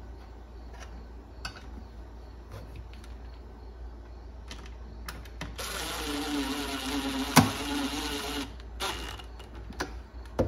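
DeWalt cordless drill/driver driving a screw into a speaker's metal grille cage: its motor runs at a steady whine for about three seconds, with one sharp click in the middle of the run. Faint clicks of hands and tool handling come before it.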